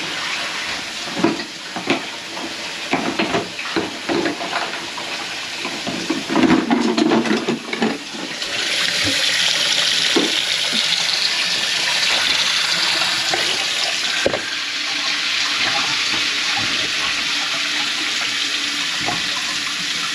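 Kitchen faucet running into a stainless steel sink, the water going down a drain just cleared of a grease clog. Knocks and clatter at first, then a steady run of the tap from about eight seconds in.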